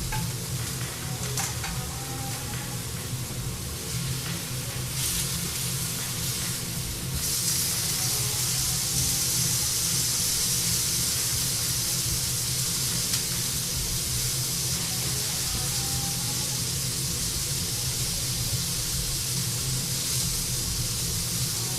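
Ground-beef tartare patty frying in a pan, a steady sizzle that grows louder about five seconds in and again about seven seconds in, over a steady low hum.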